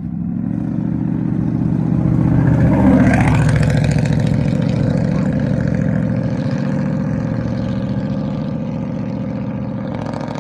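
A car engine running close by, its steady note growing louder to a peak about three seconds in and then slowly fading.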